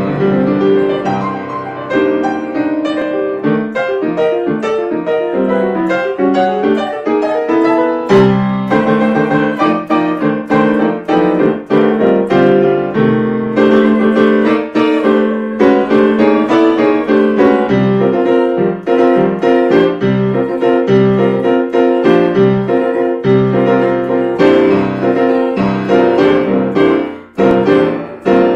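Solo grand piano playing a busy passage of sustained chords and quick runs of notes.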